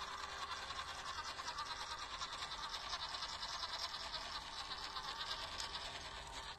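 1/16-scale WPL C24 RC crawler's small electric motor and geared drivetrain whirring steadily as the truck drives close by, with a fast, fine flutter in the sound; it cuts off suddenly near the end.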